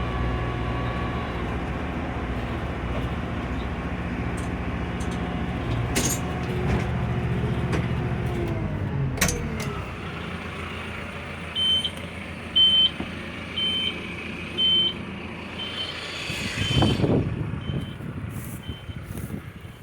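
Tractor engine running steadily, its low hum fading away about nine or ten seconds in. From about eleven seconds a short, high electronic beep repeats roughly once a second, like a warning or backup alarm.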